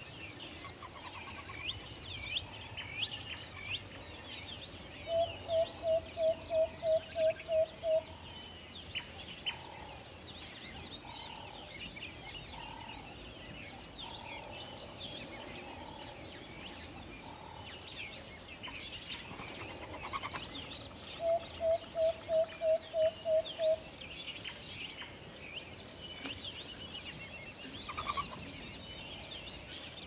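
Forest bird chorus: many small birds chirping and twittering throughout. Twice, about five seconds in and again past twenty seconds, an owl gives a quick run of about nine evenly spaced hoots, louder than the chorus.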